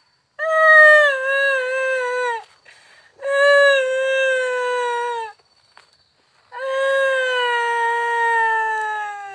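Three long, drawn-out howls, each held on one pitch that sags slightly, the last sliding downward as it trails off near the end.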